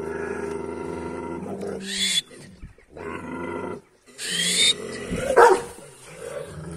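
Female shepherd dogs growling at each other over food. A long low growl breaks into sharp snarls about two and four seconds in, and the loudest snarl comes about five and a half seconds in.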